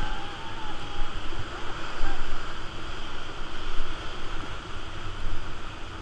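Rushing whitewater of a river rapid churning and splashing against an inflatable raft, steady and loud with surging rises. A rafter's voice calls out briefly in the first second.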